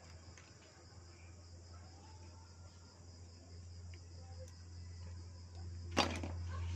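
Crickets trilling steadily over a low, steady hum, with one short, sharp clatter about six seconds in.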